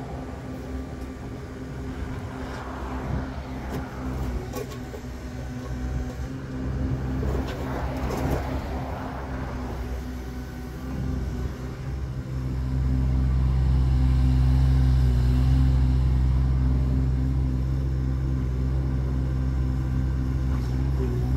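The Yanmar three-cylinder diesel of a CFG Industry STE35SR mini excavator running steadily as the machine travels on its rubber tracks and swings, with a few light knocks in the first half. About twelve seconds in the engine grows clearly louder and holds there, as it is worked harder.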